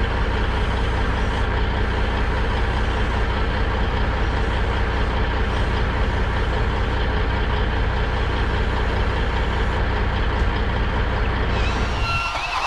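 Boom crane truck's diesel engine running steadily at a constant speed, a low even hum that cuts off about twelve seconds in.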